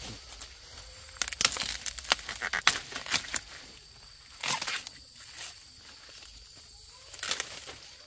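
Dry plant material rustling, crackling and tearing in irregular bursts, busiest in the first half.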